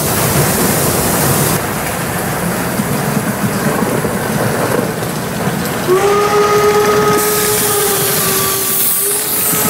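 Whistle of a Gauge 1 live-steam Aster BR 86 tank locomotive, one long steady note starting about six seconds in, breaking off briefly near the end and sounding again, over the steady hiss and rumble of the running steam train.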